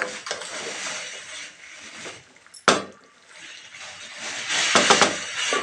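Wooden spatula stirring and scraping through hot cluster-bean gravy in a nonstick kadhai, with one sharp knock about two and a half seconds in and heavier stirring near the end.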